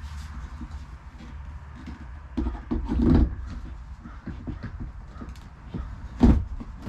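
Knocks, clatter and scraping as the parts of a 6 ft LED nutcracker decoration are handled and fitted together. There is a cluster of knocks near the middle and a single sharp, louder knock near the end.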